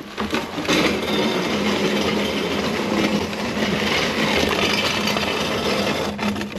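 A rusty steel skid plate scraping loudly and continuously along the ground as it is dragged out from under a Jeep Wrangler, stopping near the end.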